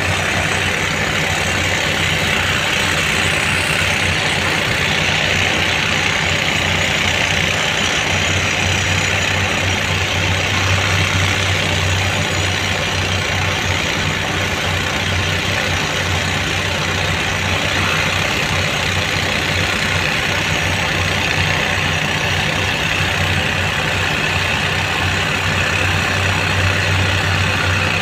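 Heavy diesel engine of a ten-wheel tipper truck running steadily at low speed as it manoeuvres, a constant low hum with no revving.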